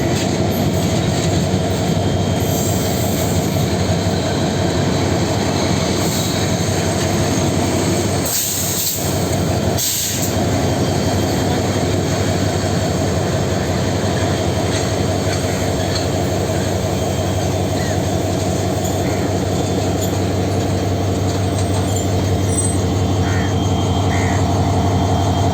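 Rangpur Express passenger train rolling into the station: a steady rumble of carriages on the rails, with brief high squeals from the wheels about eight to ten seconds in.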